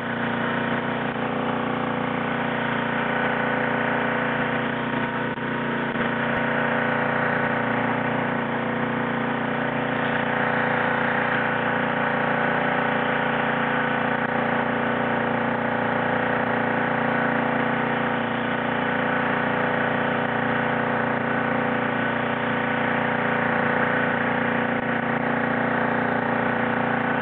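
Engine running steadily at a constant speed, an unchanging drone with a stack of steady tones, with no let-up or change in pitch.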